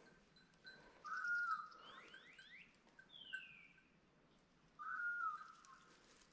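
Birds whistling in woodland. Two similar phrases come about a second in and near the end, each rising quickly and then holding one note. Between them are a few quick falling whistles and one longer downward whistle.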